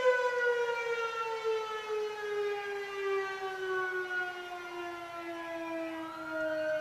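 Fire siren winding down: one long tone, rich in overtones, falling slowly and smoothly in pitch. About six seconds in, a second, higher tone rises briefly over it.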